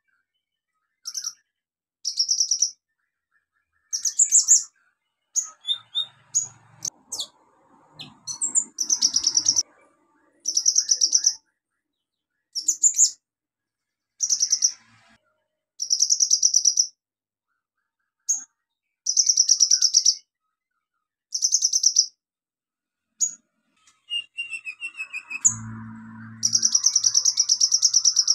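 Caged male kolibri ninja sunbird singing: rapid, high, trilled phrases about a second long, repeated every second or two, with a short run of falling notes near the end. The bird is in full, constant song ('gacor').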